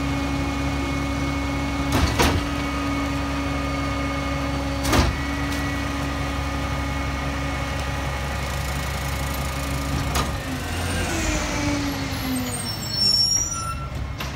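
Roy Strom EZ Pack Goliath rear loader garbage truck running with a steady drone, broken by two sharp knocks from loading the rear hopper about 2 and 5 seconds in. About 10 seconds in the drone drops and its pitch slides downward.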